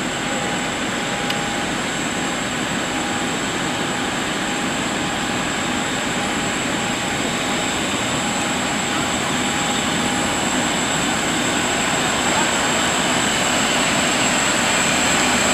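Steady machine roar from a parked Boeing 737 airliner and its ground equipment, with a high whine and a lower hum held throughout, growing slightly louder toward the end.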